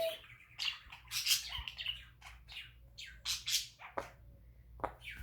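Pet bird giving a rapid run of short, scratchy chirps and squawks, about a dozen in a few seconds, mostly high-pitched.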